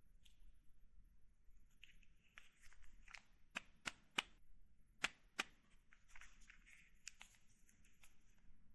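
Handling of a NovoRapid FlexPen insulin pen: soft plastic rustling with several sharp plastic clicks in the middle, a quick run of three and then two more, and a few lighter clicks near the end.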